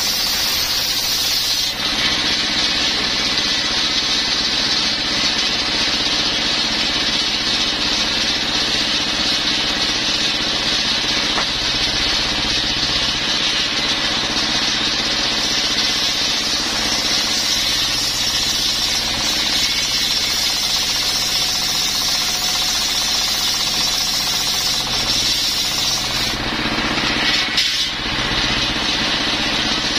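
A circular table saw driven by a single-cylinder stationary diesel engine, ripping coconut-wood planks lengthwise. The engine runs steadily under a loud, high cutting noise from the blade. The cutting eases for a moment about 26 seconds in and picks up again as the next plank is fed.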